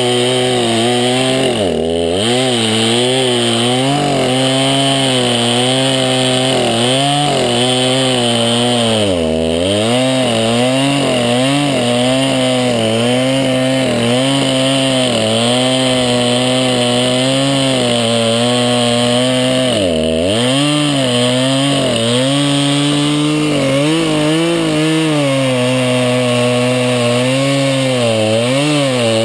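Craftsman 50cc two-stroke chainsaw with a 20-inch bar running at high revs, most likely bucking a log: its pitch wavers with the load and drops sharply a few times, about 2, 9.5 and 20 seconds in and again at the end.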